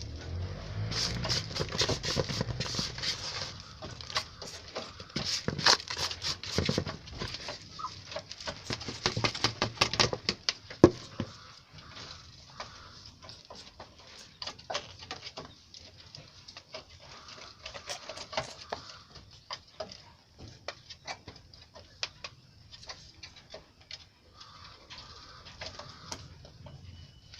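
Poultry pecking at feed: many quick, irregular taps, busiest and loudest in the first half and thinning out later.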